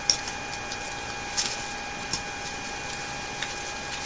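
A few scattered light clicks and taps from handling at a store checkout counter and cash register, over a steady whine and hiss in the surveillance recording.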